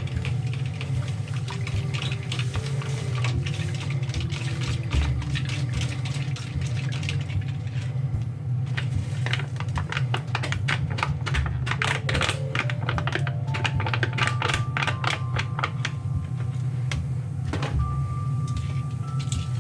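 Background music: a melody of single held notes over a steady low accompaniment. Partway through, a quick run of sharp clicks and taps.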